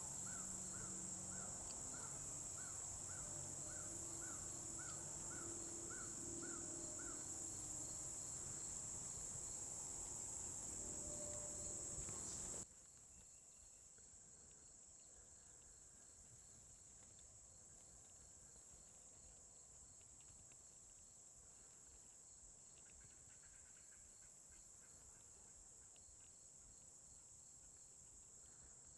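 Summer insect chorus: a steady high-pitched drone with faint regular cricket chirping underneath. In the first several seconds a bird repeats a short call about twice a second. About thirteen seconds in, the sound drops suddenly in level and the insects carry on more quietly.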